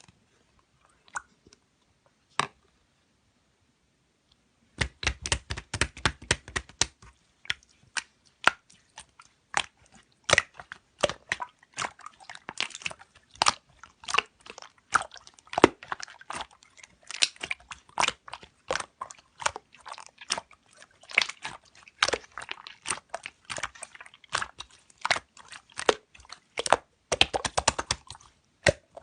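Slime being squeezed and pressed by hand, making fast, crackly clicks and pops. After two lone clicks, the steady crackling starts about five seconds in.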